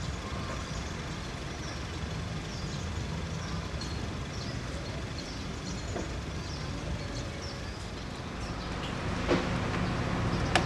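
Outdoor background of a steady low rumble, with faint short high chirps scattered through it and a single sharp knock about nine seconds in.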